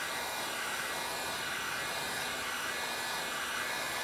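Electric heat gun running steadily, a constant blowing hiss with a faint high whine, as it blows hot air onto flexible window flashing tape to warm the adhesive in the cold.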